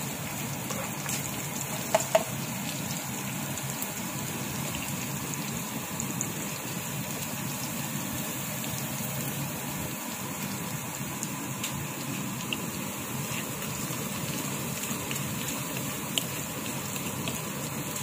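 Chopped onion and garlic sizzling in oil in a frying pan, a steady hiss. Two sharp knocks about two seconds in and another near the end.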